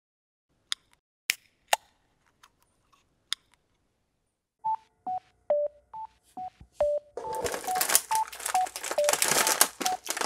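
A few sparkly chime clicks, then a simple tune of short beeping notes. From about seven seconds in, a plastic snack bag crinkles in the hands as it is picked up and turned, with the notes running on over it.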